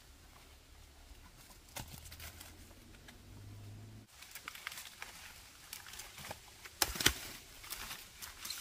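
Rustling and crinkling handling sounds with scattered clicks and a few sharp knocks, the loudest about seven seconds in; a low hum underneath stops abruptly about four seconds in.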